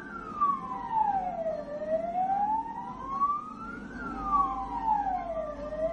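A siren wailing in slow rising and falling sweeps, about one full cycle every four seconds, with traffic rumbling underneath.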